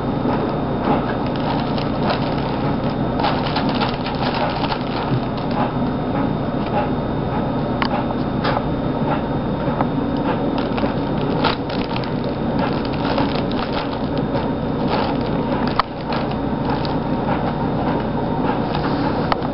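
Crinkle-lined fabric cat tunnel crackling and rustling continuously as a kitten rolls and paws around inside it, with a single sharp click late on.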